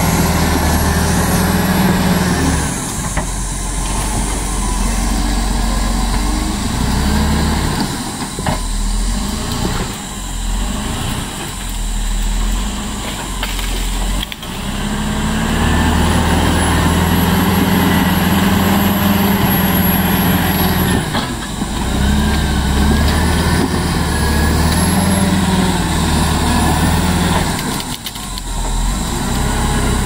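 Caterpillar D7R crawler dozer's diesel engine working under load while the machine tracks and pushes through mud and brush. The engine note swells and eases several times, with a high whine while it pulls hardest in the middle of the stretch.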